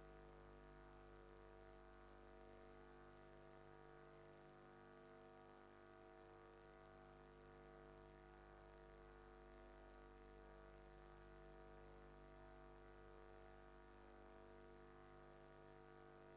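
Near silence, with only a faint steady electrical hum and a thin high whine.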